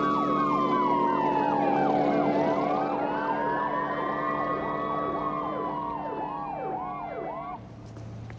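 Police car sirens: one slow wail sinks and rises again over several seconds while a faster whooping sweep repeats on top, over a steady low hum. The sirens cut off about seven and a half seconds in.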